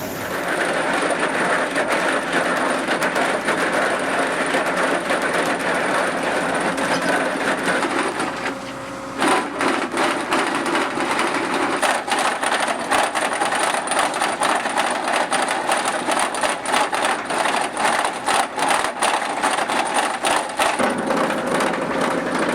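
Excavator-mounted chain cutter grinding through stone, a loud, dense, rough grinding noise. After a brief dip about eight seconds in, it carries on with a rapid run of knocks and rattles.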